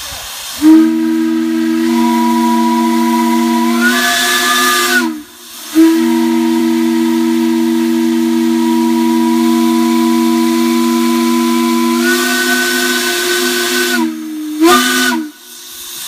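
Steam-blown Clifton Forge C&O railroad shop whistle sounding a loud, low chord in three blasts: a long one, a longer one, and a short one near the end. The first two step up in pitch just before cutting off, over the hiss of escaping steam.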